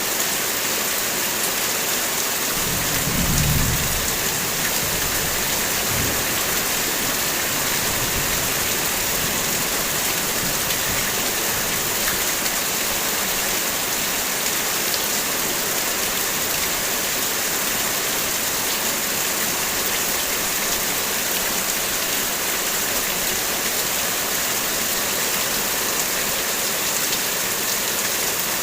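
Heavy rain falling steadily, with a low rumble of thunder about three seconds in and fainter rumbles shortly after.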